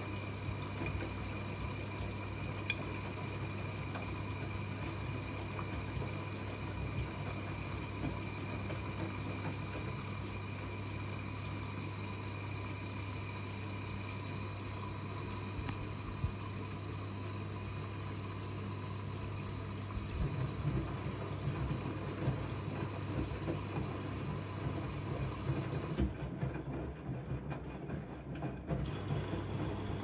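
Siemens iQ 300 front-loading washing machine on a rinse cycle: the drum motor runs with a steady hum and whine while water sloshes through the tumbling laundry. The sloshing grows more uneven in the second half, and the hiss briefly drops away near the end.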